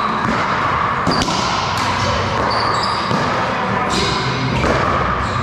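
Ambience of a large indoor gym hall: a steady noise with a few sharp knocks of a ball bouncing on the court and some brief high squeaks.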